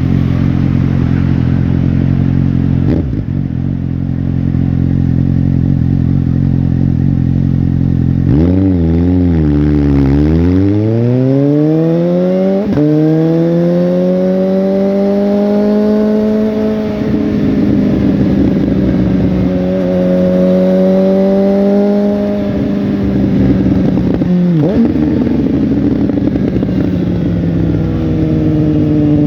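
Suzuki GSX-S750's four-cylinder engine and exhaust running loud: a steady note for about eight seconds, a couple of quick revs, then accelerating with the pitch rising over several seconds and holding. The pitch drops at a gear change about 25 seconds in, then starts rising again near the end.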